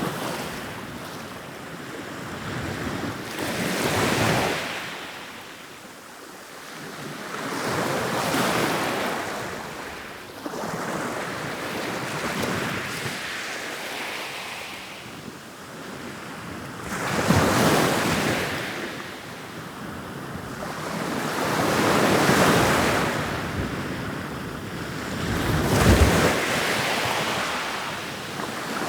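Ocean waves rolling in and breaking, each surge rising and falling away about every four to five seconds.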